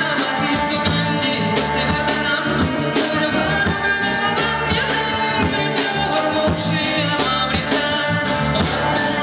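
Band music: drums, guitar and a singing voice, playing on without a break.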